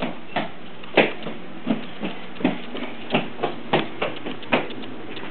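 A dog crunching food it is being hand-fed, heard as sharp, crisp clicks at uneven intervals, about two a second.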